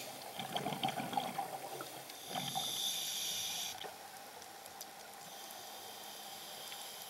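Scuba diver's regulator breathing, heard underwater: a burble of exhaled bubbles in the first couple of seconds, then a hissing inhale through the demand valve, then quieter hiss and faint clicks.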